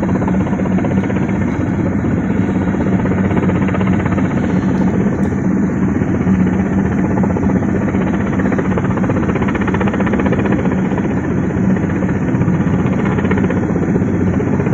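Heavy lifting machine's engine running steadily and loudly, with a constant low hum, as it hoists rooftop air-conditioning units.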